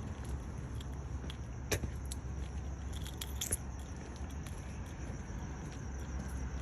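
Steady low outdoor background rumble, with scattered faint clicks and ticks, a slightly sharper one about two seconds in.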